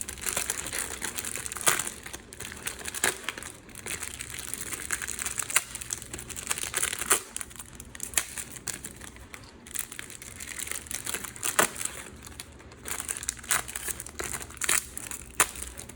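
Sealed plastic trading-card packets being handled and sorted by hand: a steady crackle of wrappers with many sharp clicks.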